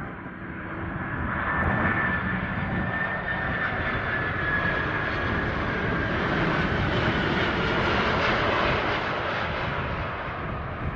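McDonnell Douglas MD-11 freighter's jet engines on landing approach, a loud, steady jet noise that builds over the first two seconds and eases near the end. A thin fan whine slowly falls in pitch as the plane passes.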